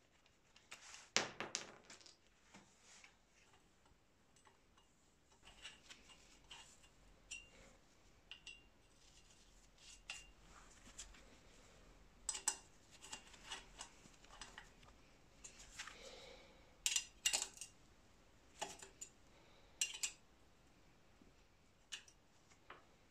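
Scattered light metallic clinks and clicks of bicycle parts and tools being handled: the steel sprockets of a rear cluster at the hub, then an L-shaped hex key working a bolt in the frame. Some clinks ring briefly.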